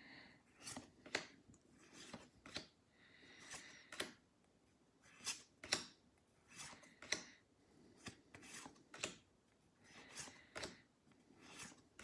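Pokémon trading cards being handled and flicked through one at a time: a string of faint papery snaps and rubs as each card is slid from the front of the stack to the back.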